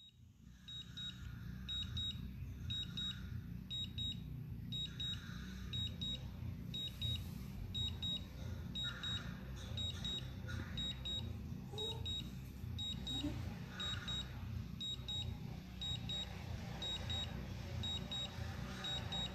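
A high-pitched double beep repeating about every two-thirds of a second: the DJI Phantom 4 Pro remote controller's alert tone while the drone makes an automatic landing. A steady low rumble runs underneath.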